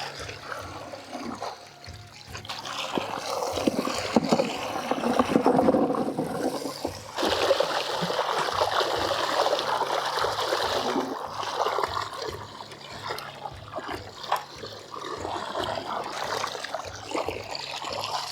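Water splashing and trickling in a tub as freshly dug sweet potatoes are washed by hand, loudest for a few seconds in the middle.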